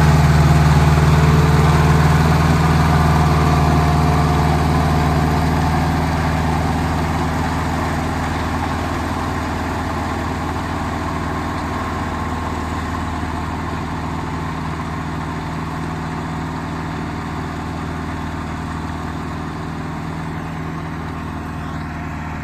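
Fendt F380GT tractor's engine running steadily under load while powering a rotary tiller through the soil, growing steadily fainter as the tractor moves away.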